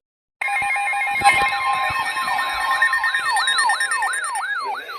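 Layered electronic sirens and alert tones start abruptly about half a second in. Several steady alarm tones sound together under a siren whose pitch sweeps up and down about three times a second, with a sharp knock near the start.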